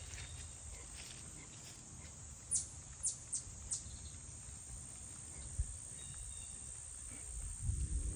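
Outdoor nature ambience: a steady high-pitched insect drone, with four short, high, falling chirps from a bird a few seconds in. Low rumbling under it grows into a run of low thumps near the end.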